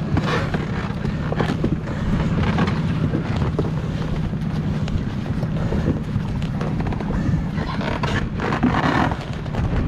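Wind buffeting the microphone over a steady low hum, with scattered knocks and splashes.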